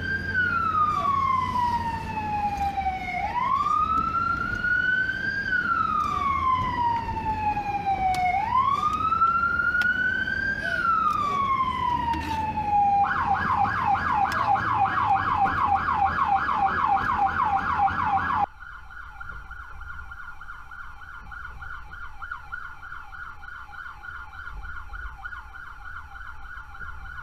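American police car siren in wail mode, rising and falling slowly three times, then switching to a fast yelp about halfway through, over a low engine and road rumble. A few seconds later the siren drops sharply in level and keeps yelping.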